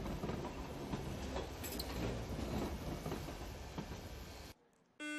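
A Hong Kong MTR Light Rail vehicle running along its track, with a steady wheel rumble and scattered clicks over the rail. It cuts off suddenly near the end, where a steady electronic beep begins.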